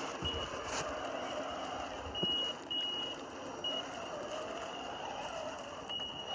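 Traxxas TRX4 Sport RC crawler's Castle brushless motor and speed controller whining at low throttle as it creeps over roots and rocks. A high steady whine cuts in and out in short spells with the throttle, over a lower whine that rises and falls with speed, and there are a couple of knocks.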